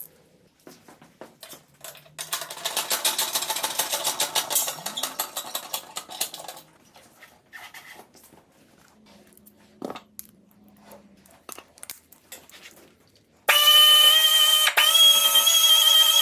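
A rotary power tool starts near the end and runs with a loud, steady high-pitched whine, dipping once briefly. Earlier, a few seconds of rapid rattling clicks.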